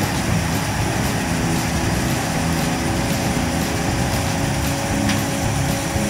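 John Deere 9600 combine harvesting corn: its diesel engine and threshing machinery running steadily under load, a constant drone with a steady whine above it.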